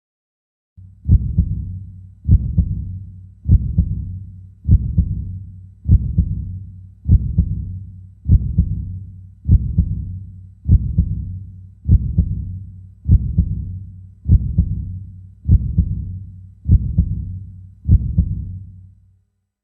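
Human heartbeat, regular and slow at about fifty beats a minute: low thuds with fading tails over a steady low hum. It starts just under a second in and stops shortly before the end.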